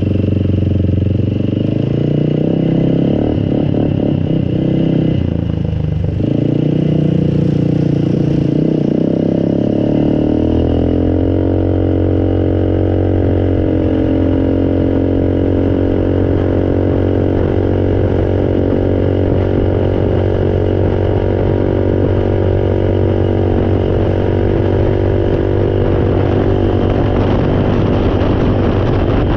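Engine running, its pitch rising and falling unevenly for the first ten seconds, then settling to a steady run.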